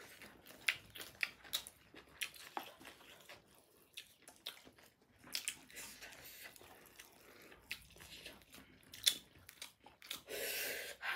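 Two people chewing mouthfuls of biryani and buffalo meat eaten by hand: many small, scattered mouth clicks and smacks, with a short breathy hiss near the end.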